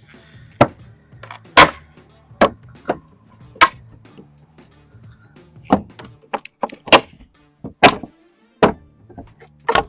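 Hammer blows on the wooden fence, about a dozen sharp knocks at an irregular pace, some in quick pairs.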